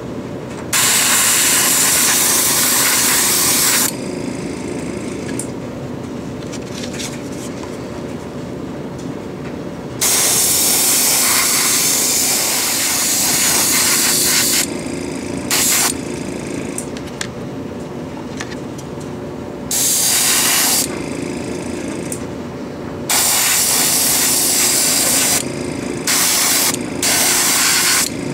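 Airbrush spraying primer in about seven hissing bursts, some brief and some several seconds long, over the steady hum of a small airbrush compressor.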